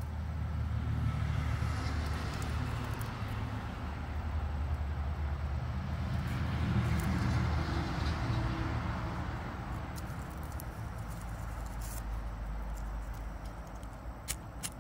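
Outdoor background rumble with a hiss that swells and fades twice, and a few faint clicks near the end.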